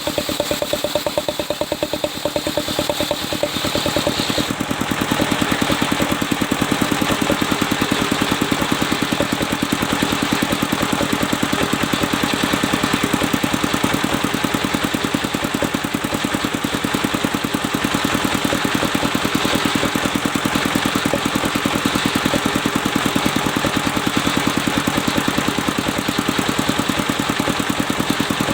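Engine-driven circular sawmill running with a steady pulsing drone. About four seconds in the sound grows louder and fuller as the blade cuts into the mahogany log, then holds steady.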